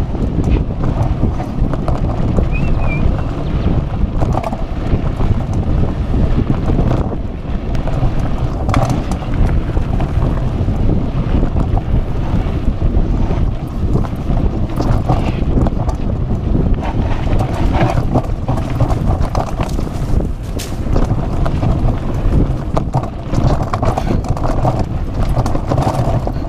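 Wind buffeting the microphone over an unbroken clatter of short knocks and rattles from a mountain bike jolting down a rough dirt trail at speed.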